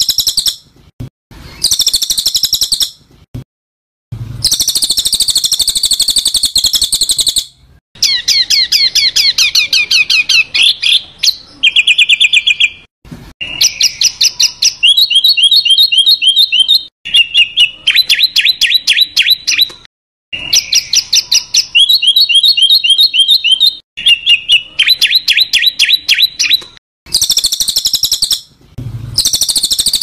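Songbird sounds from a masteran (bird-song training) recording of harsh calls. Harsh, scratchy chatter comes in bursts at the start and again near the end. Through the middle are fast trills and rapid runs of repeated notes, phrase after phrase with short gaps.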